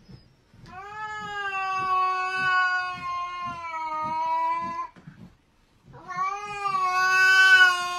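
A gray-and-white cat yowling in two long, drawn-out calls, the first lasting about four seconds and the second starting about six seconds in.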